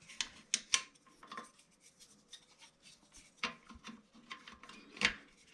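Irregular clicks and short scrapes of a wrench working plastic hinge-bolt nuts tight under a toilet seat.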